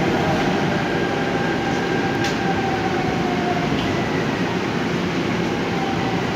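Seoul Subway Line 5 train running through the tunnel: a steady rumble of wheels on rail, with a faint motor whine that drifts slowly down in pitch.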